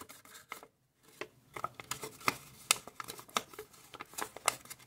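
Thin kami origami paper crinkling and crackling as fingers shape and crease a folded square vase: a run of irregular sharp crackles, a few louder ones in the middle.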